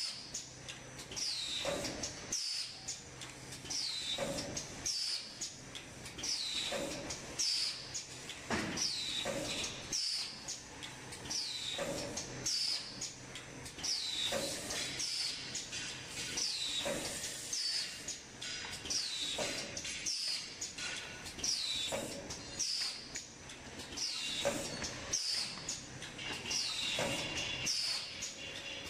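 A paper tray forming machine running through its cycle: a short, high, falling squeak repeats about once a second, with a duller thump about every two seconds over a faint steady hum.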